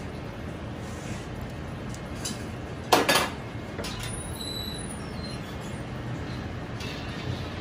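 Steady low kitchen background hum with one sharp metallic clink against a stainless-steel mixing bowl about three seconds in, ringing briefly, and a few faint small clicks as seasonings are added to the chicken.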